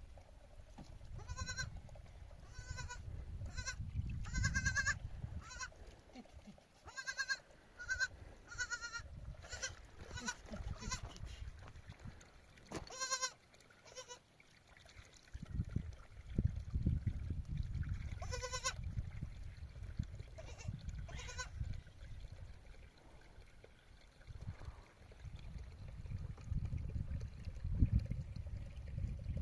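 Sheep and goats bleating, many short calls one after another, thinning out after about twenty seconds, over a low rumbling noise.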